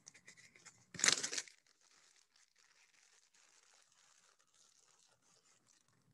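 Clear plastic zip-top bag being handled, crinkling: a short louder rustle about a second in, then faint crinkling that stops shortly before the end.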